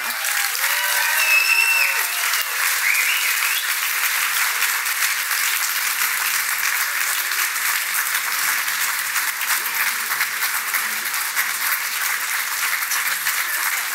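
A large audience applauding steadily at the end of a speech, with a few whoops and cheers in the first two seconds.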